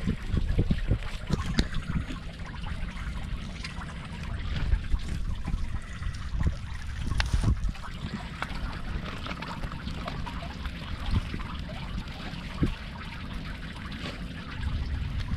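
Water trickling and dripping from a wet fishing net heaped with water weeds and fish, with scattered small crackles and a low, uneven rumble.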